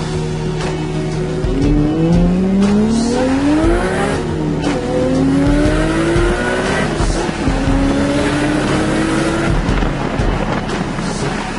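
Car engine accelerating hard, its pitch rising three times with a drop between each rise, like shifting up through the gears.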